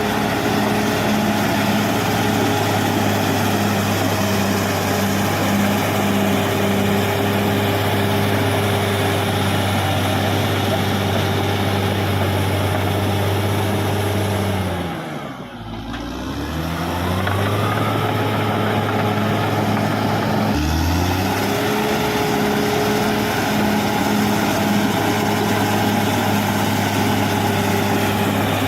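Caterpillar D6R XL bulldozer's diesel engine running at steady high revs. About fifteen seconds in, the revs drop sharply, then climb back up, with another rise a few seconds later.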